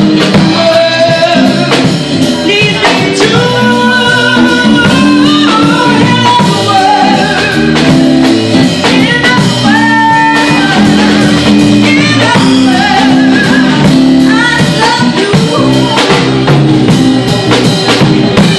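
A woman singing a melody into a microphone, backed by a live band with guitar and drums.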